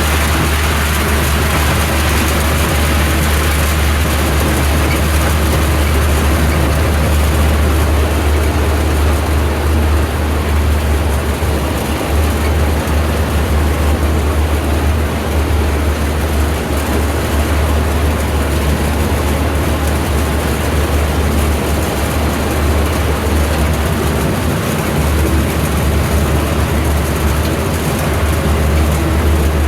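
Tractor engine running steadily with a deep, continuous hum.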